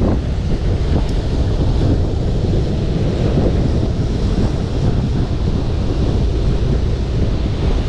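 Strong wind noise on the microphone over rough surf breaking on a pebble shore, a steady rushing roar with no break.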